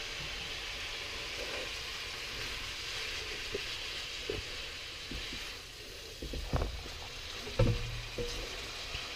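Vermicelli noodles and prawns sizzling steadily in a wok, with a wooden spatula scraping and knocking against the pan now and then, mostly in the second half.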